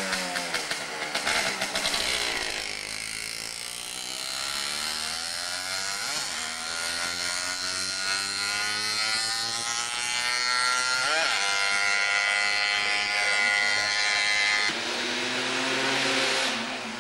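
Competition motorcycle engine revving hard as the bike accelerates up the hill climb, its pitch rising through each gear and dropping at gear changes about six and eleven seconds in. About fifteen seconds in the sound switches abruptly to another motorcycle's lower engine note.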